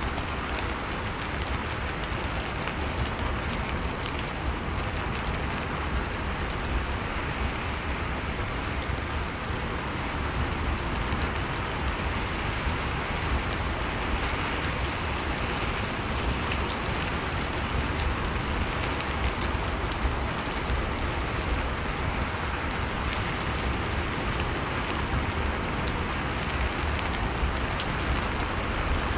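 Steady rain, a dense patter of drops with a low rumble underneath.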